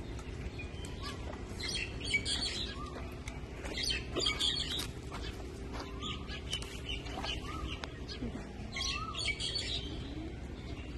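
Birds chirping in a few bursts, with short whistled notes between them, over a steady low background hum.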